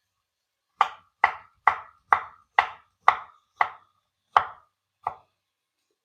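Kitchen knife slicing through onions onto a cutting board: nine sharp chops at about two a second, stopping about a second before the end.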